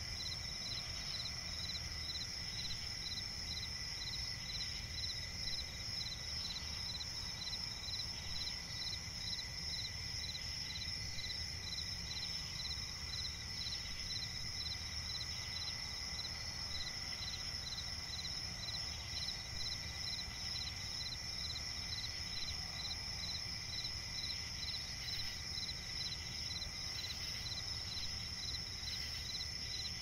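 Crickets chirping in a steady night chorus: one continuous high trill, with another cricket pulsing evenly about three times a second, over a low background rumble.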